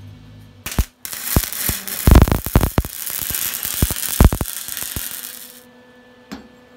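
Flux-core wire-feed welding arc crackling and spitting, with many sharp pops. It starts about a second in and cuts off suddenly near the end.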